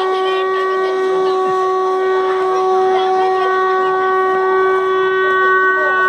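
A loud, horn-like tone held steady at one pitch.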